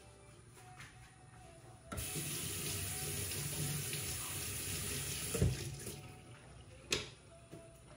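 Water running from a tap for about four seconds, starting abruptly about two seconds in, with a knock near its end and a sharp click about a second later.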